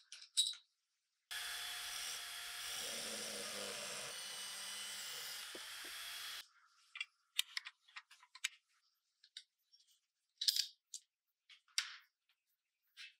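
A small handheld grinder with an abrasive wheel runs steadily for about five seconds, grinding a small metal part clamped in a vise, and cuts off abruptly. After it, a scatter of short metal clicks and clinks as steel gun parts are handled and fitted together.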